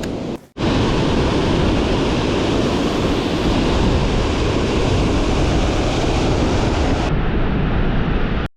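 Strong wind blowing across the microphone: a loud, steady rushing noise that briefly drops out about half a second in.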